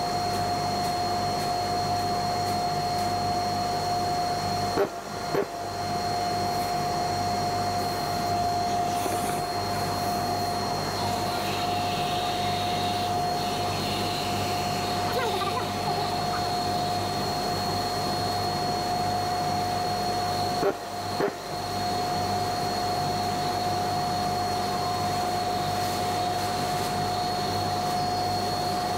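Dust-extraction vacuum running steadily through the hose of a hand sanding block, a steady whine over a rushing hiss. The sound dips abruptly for a moment twice.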